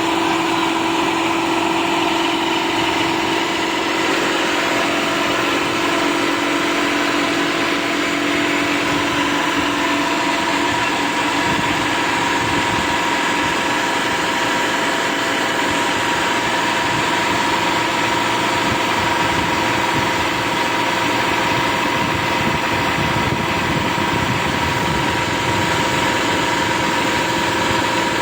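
Rice combine harvester running steadily: an even engine-and-machinery drone with a couple of held pitched tones through it.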